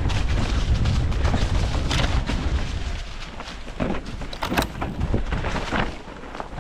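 Mountain bike riding down a rough trail: a heavy low rumble of wind buffeting the microphone and tyres on the ground, easing off about three seconds in, then lighter clicks and rattles from the bike.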